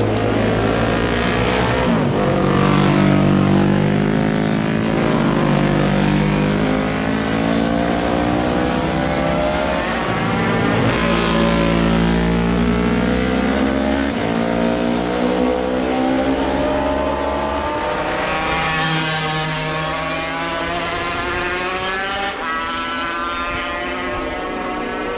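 Classic racing motorcycles passing one after another, slowing for a tight bend and then accelerating away. The engine pitch climbs again and again as each bike pulls out of the corner.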